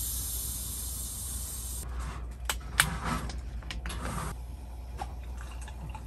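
A bottle of sparkling makgeolli being uncapped, its gas hissing out steadily and stopping about two seconds in. Then come sharp clicks and the makgeolli being poured into a stainless steel tumbler.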